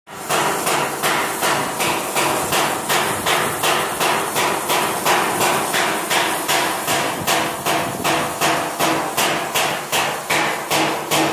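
Hammer striking metal in a steady, even rhythm, about three blows a second, each blow leaving a brief metallic ring.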